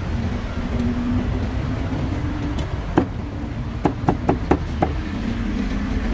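Cleaver chopping meat on a wooden block: one strike about three seconds in, then a quick run of five strikes, over a steady background of street noise.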